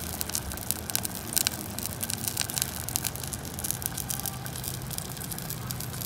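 Broth boiling in a steel pot on a gas stove: a dense run of small irregular bubbling pops and crackles over a steady low hum.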